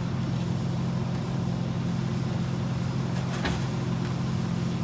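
Mack LE garbage truck's diesel engine running steadily at idle, a constant low hum, with one short sharp knock about three and a half seconds in.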